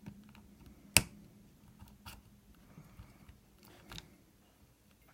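Small metal clicks and scrapes of a lock pick and tension wrench working in the keyway of an old rusty padlock, with one sharp click about a second in.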